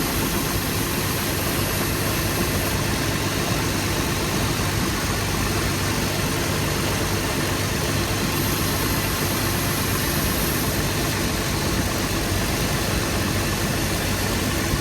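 2008 Toyota Tacoma engine idling steadily with the air conditioning running at full blast, during a refrigerant recharge. A faint high hiss comes and goes twice, near the start and about two-thirds of the way through.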